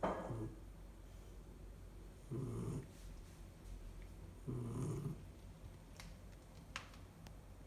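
Sleeping puppy snoring: two low, rough snores about two seconds apart, each lasting about half a second.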